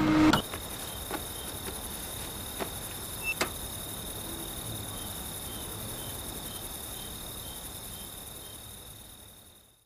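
Night-time crickets chirping: a steady high trill with faint pulses about twice a second. A few soft clicks are heard, with one sharper click about three and a half seconds in, and the sound fades out near the end.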